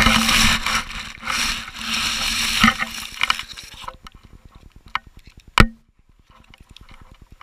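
Rustling and scraping against the crashed quadcopter's onboard camera as it is moved about in the grass, loud for the first four seconds. About five and a half seconds in there is a single sharp knock from handling.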